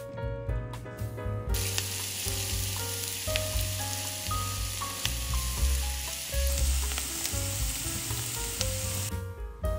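Diced onion sizzling as it fries in vegetable oil in a nonstick pan, stirred with a spatula. The sizzle comes in about a second and a half in and stops shortly before the end.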